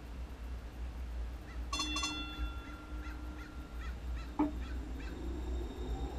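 MAX light rail train standing at a platform: a short double tone sounds just under two seconds in, a knock follows a little past four seconds, and near the end a faint whine begins rising in pitch as the train starts to pull away.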